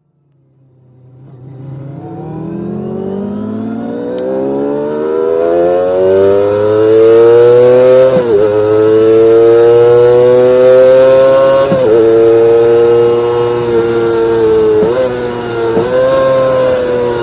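Kawasaki Ninja ZX-25R's 250 cc inline-four engine at very high revs, a high-pitched wail that fades in and climbs steadily for several seconds, then holds high with four brief dips in pitch.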